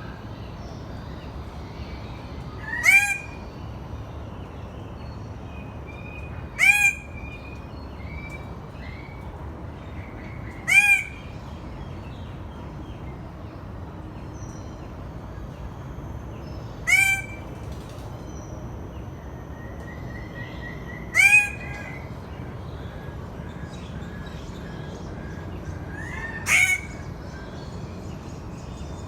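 Bird of paradise calling: six loud, short calls spaced about four seconds apart, with softer bird notes between them.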